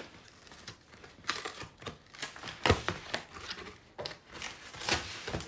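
Cardboard shipping box being handled and pulled open: an irregular series of knocks, clicks and scrapes of cardboard, with rustling between them.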